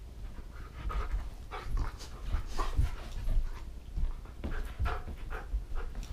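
Husky-type dog panting hard in quick irregular gasps while tugging on a rope toy, with dull thumps and scuffling on the carpet.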